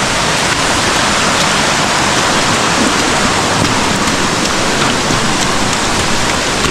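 Loud, steady rush of falling water, swollen after a heavy storm.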